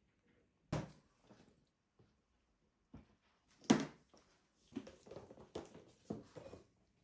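A few knocks and clatters of household things being handled: a knock near the start, a louder one about halfway, then a busier run of clattering in the last couple of seconds.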